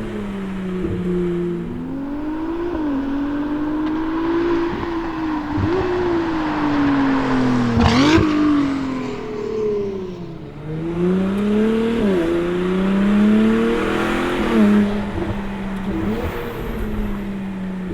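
Ferrari 296 GTS twin-turbo V6 with a full Capristo exhaust accelerating on the road. Its pitch climbs and drops back at each upshift. About eight seconds in there is a sharp crack, and the engine eases off with a falling pitch. It then pulls through two more upshifts before settling to a steady cruise.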